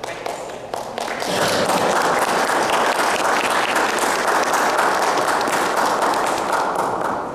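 Audience applauding: scattered claps at first, swelling about a second in into full applause that begins to fade near the end.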